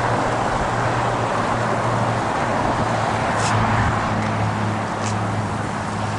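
A car running, heard from inside the cabin: a steady engine hum under an even rush of road and air noise, with two faint ticks about halfway through.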